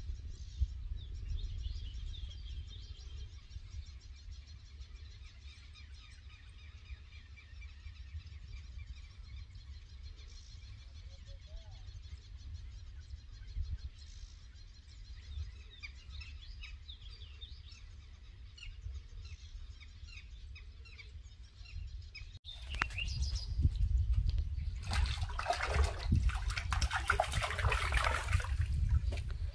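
Small birds chirping over a low steady rumble. After a cut about two-thirds of the way in, loud water splashing as a hooked fish thrashes at the surface while being pulled in.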